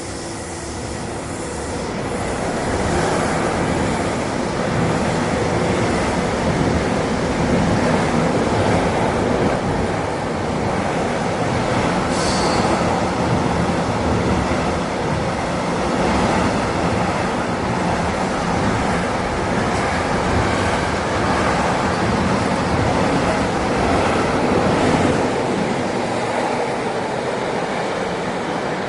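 A train passing: the steady rumble and rolling noise of its wheels on the rails builds over the first few seconds, then holds. A brief high wheel squeal comes about twelve seconds in.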